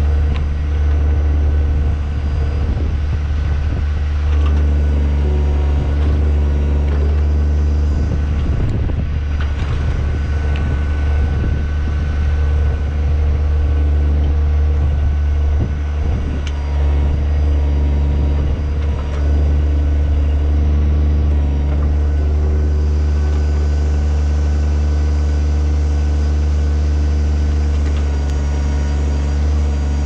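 Kubota BX25 subcompact tractor's three-cylinder diesel engine running steadily while the backhoe digs, with a few irregular knocks and crunches around the middle.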